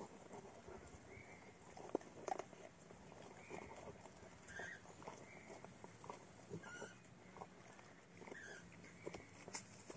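Golden retriever gnawing and crunching on a hard chew, with faint irregular cracks and clicks, the loudest pair about two seconds in.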